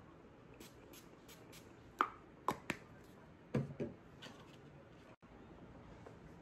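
Handling noise: a handful of sharp taps and clicks, about two to four seconds in, over quiet room tone.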